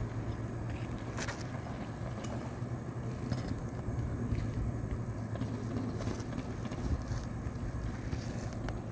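A steady low outdoor rumble with a few faint sharp clicks and scrapes from a tool working at roof shingles.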